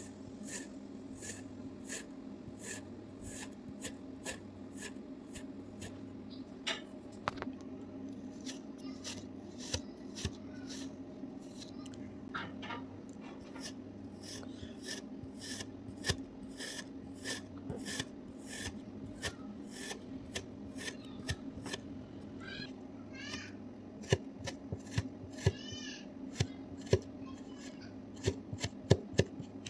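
Kinetic sand being cut: repeated short, dry scraping strokes, about two a second, over a steady low hum. Near the end come several sharper, louder taps, and a little past the middle there are a few brief squeaky pitched sounds.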